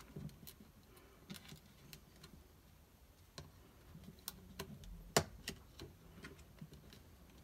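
Scattered light clicks and taps of a 3D-printed plastic case being handled and pressed together, with one sharper click about five seconds in.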